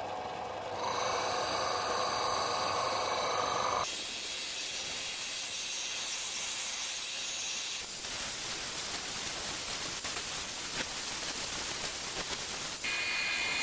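Bench belt-and-disc sander running while the edge of a plywood disc is sanded on its spinning sanding disc, as the disc is turned to bring it down to a scribed line. The result is a steady rasping hiss that shifts abruptly in tone a few times.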